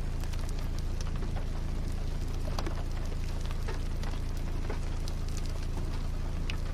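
Rain falling during a severe thunderstorm, with scattered single drops ticking sharply over a steady low rumble.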